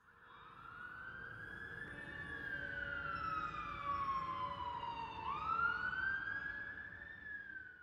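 Emergency vehicle siren wailing in slow sweeps: it rises, sinks slowly for a few seconds, then swoops up again a little past halfway and sinks once more. It fades in at the start and fades out near the end, over a low steady rumble.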